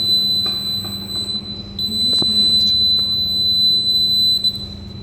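Piezo buzzer of an Arduino flame-sensor fire alarm sounding a steady high-pitched tone: the alarm going off as it does when fire is detected. The tone breaks off briefly about a second and a half in and again near the end, over a low steady hum.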